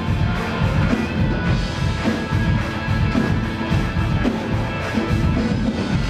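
Live band music with drums keeping a steady beat and heavy bass.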